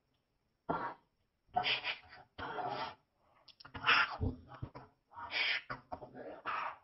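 A voice in about six short bursts of half a second or so, cut off sharply into dead silence between each.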